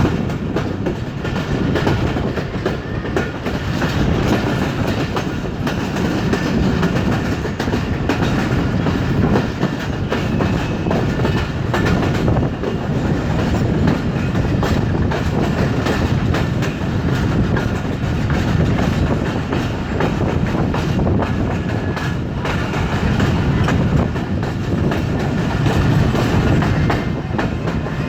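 Karachi Express passenger train running on the track, its wheels clattering steadily over the rail joints.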